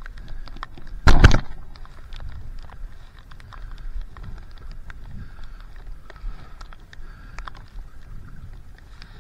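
Water splashing and lapping around a stand-up paddleboard as it is paddled, with many small ticks and drips and one loud burst about a second in.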